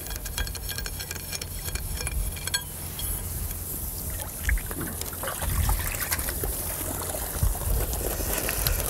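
Water trickling and dripping off a fishing keepnet's mesh as it is lifted out of the canal, with a steady low rumble underneath.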